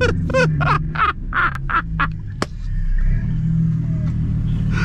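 The Audi A6's supercharged V6 engine running steadily while the car stands still, its low note growing fuller about three seconds in. Over the first couple of seconds there is a rapid run of short, voice-like quacking sounds.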